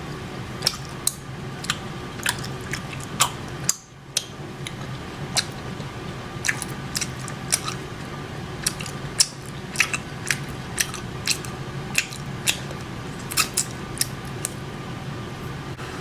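Close-miked eating: chewing and mouth smacking heard as irregular sharp, wet clicks over a steady low hum, with a brief break about four seconds in.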